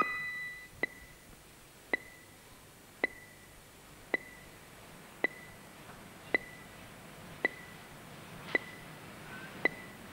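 A steady series of short, high pings, one about every 1.1 seconds, each a sharp click with a brief ringing tone.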